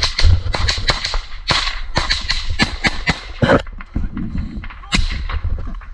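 Dense brush being pushed through on foot: a quick, irregular run of branches snapping and cracking and leaves rustling, over the low rumble of a helmet-mounted camera.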